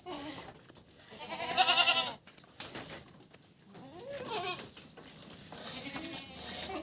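Goat bleating: one loud, trembling bleat about a second and a half in, then fainter, shorter calls.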